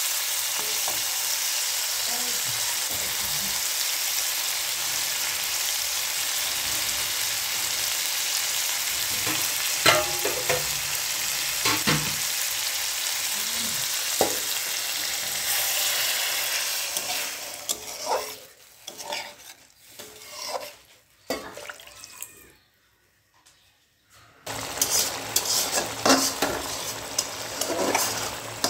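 Puti fish curry sizzling in hot oil in a pan, with a spatula scraping the pan a few times. The sizzling fades out a little past halfway, drops almost to silence, and then stirring and scraping start again near the end.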